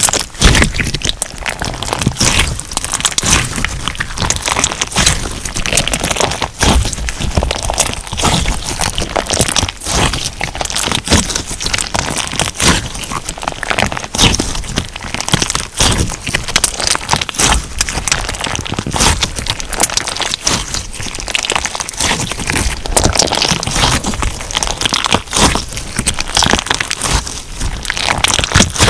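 Crunch slime being squeezed and kneaded by hand, giving a dense, unbroken run of crackling, popping crunches.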